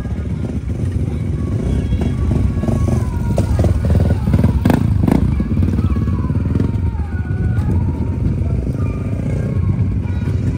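Motocross dirt-bike engines running and revving over a steady low rumble, their pitch rising and falling.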